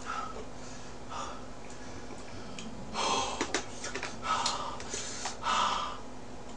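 A person eating with chopsticks: chewing, with a few sharp mouth or chopstick clicks and three breathy gasps in the second half, over a steady low hum.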